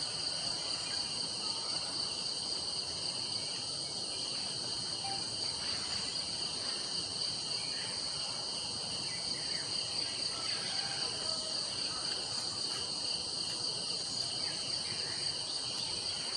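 Steady chorus of forest insects: several shrill high-pitched tones held without a break.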